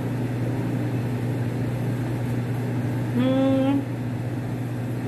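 Steady mechanical hum of a running appliance or machine. About three seconds in, a short hummed vocal sound, slightly rising, from the woman who is chewing a mouthful of food.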